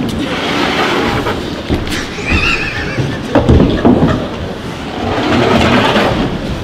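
Opening of a music video's soundtrack played over the hall's speakers: a noisy, rumbling sound-effect bed with low thuds, and a short wavering high-pitched call about two and a half seconds in.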